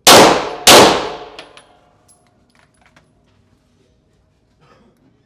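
Two Glock pistol shots fired as a quick double tap, about 0.6 s apart, each followed by a long echo that dies away over about a second.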